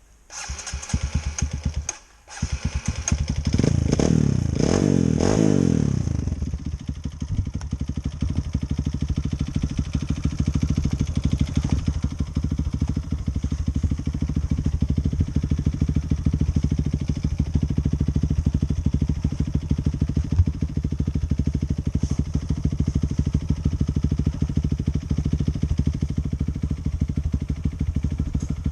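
Enduro dirt bike engine starting, cutting out briefly about two seconds in, then revved up and down a few times before settling into a steady run.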